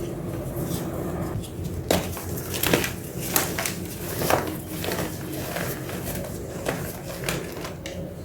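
Irregular knocks and clatter, about six sharp hits at uneven intervals, over a steady low hum.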